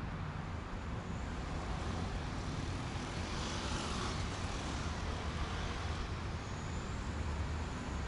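Road traffic ambience: a steady low rumble of passing vehicles, with a hissing swell that rises and fades about halfway through.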